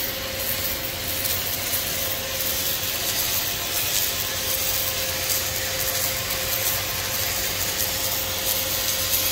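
Steady industrial machinery noise: an even hiss with a constant hum underneath, from the automated welding equipment in the factory hall.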